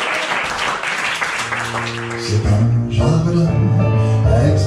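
Audience applause, with an upright piano starting an introduction about one and a half seconds in; the clapping dies away about three seconds in, leaving the piano.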